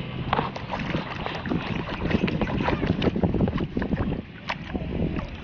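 Water splashing and sloshing as a hand scrubs and rinses a soapy plastic toy cement mixer truck under the water surface, with a steady low hum underneath.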